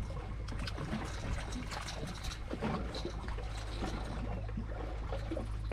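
Water trickling and splashing lightly in small irregular bursts at a fishing boat, over a steady low hum.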